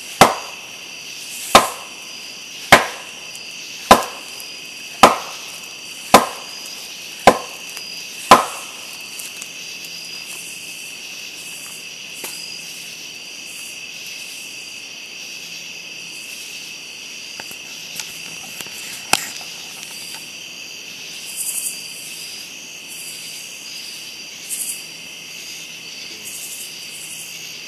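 A wooden stick struck hard against a tree trunk eight times, about one knock a second, then stopping: a wood knock. Crickets and other insects chirr steadily throughout.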